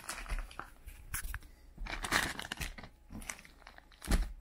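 Clear plastic zip-lock bag crinkling and crackling as it is handled and pulled open, in irregular rustles and clicks, with a louder crackle about two seconds in and a sharp one near the end.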